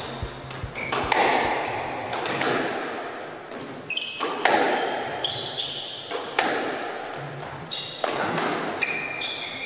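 Squash rally: the ball cracks off rackets and the court walls about every one and a half to two seconds, each hit echoing in the enclosed court, with short high shoe squeaks on the court floor between the hits.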